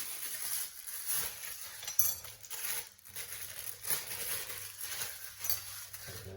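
Light clinks and rustling from handling the blinds' mounting hardware: metal brackets and screws knocking together among plastic packaging.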